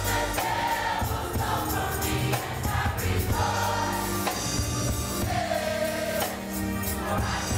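A large youth gospel choir singing in blended parts over a steady beat.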